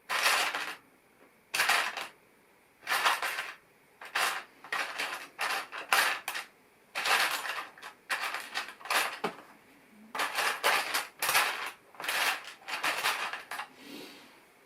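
Loose plastic LEGO pieces clattering and rattling in uneven bursts as a hand rummages through them, searching for a missing piece.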